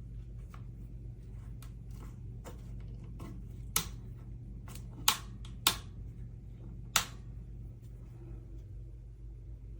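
Four sharp clicks or taps, a second or so apart in the middle of the stretch, with fainter ticks between them, over a low steady hum.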